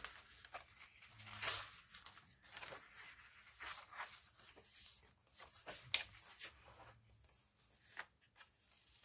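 Paper pages of a handmade junk journal rustling as they are turned one after another: a string of faint, soft swishes with an occasional light tick.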